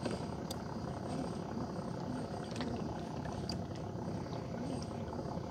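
Small boat's engine idling steadily at low speed, with a few faint clicks over it.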